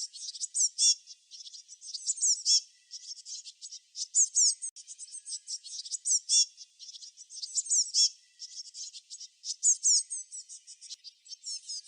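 Songbirds chirping: quick high-pitched chirps and short downward-sweeping notes, in bursts about every two seconds.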